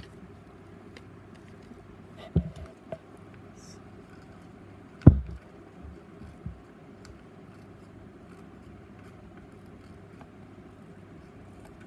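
Scissors cutting paper in faint scattered snips, with a few knocks from handling on the work surface, the loudest about five seconds in, over a steady low background hum.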